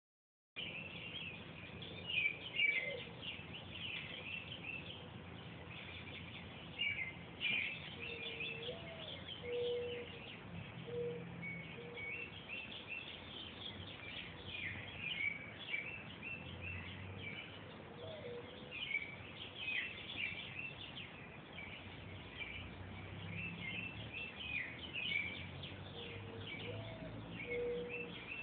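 Small birds chirping and trilling throughout, with owls hooting underneath every several seconds: a short swooping call followed by a few short low hoots.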